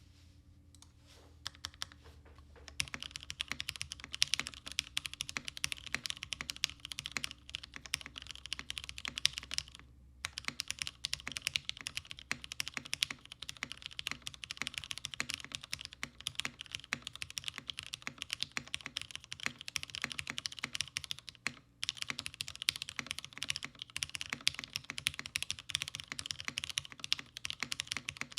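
Typing on a Haus mechanical keyboard with vintage 1992 Cherry MX Black linear switches in a top-mount aluminum plate and ePBT keycaps. Quick, steady typing starts about three seconds in and pauses briefly twice.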